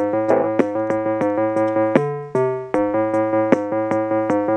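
Casio Casiotone MT-41 electronic keyboard being played: held organ-like chords that change a few times, over a steady beat of short ticks and low bass notes.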